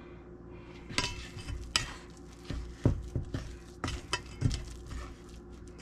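A mixing spoon stirring a stiff flour-and-butter batter in a stainless steel bowl, clinking and scraping against the metal sides in irregular strokes that begin about a second in.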